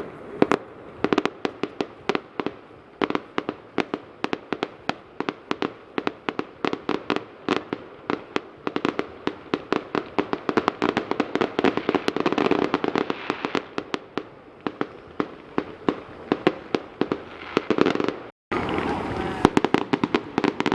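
Fireworks going off in rapid succession, several sharp bangs a second over a continuous crackling haze. The sound cuts out for a moment near the end, then resumes.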